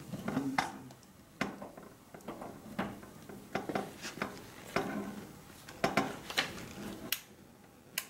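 Clothes iron being moved and set down on the painting table: irregular sharp clicks and knocks, roughly one every half second to second. The iron shuts itself off when it is not moving.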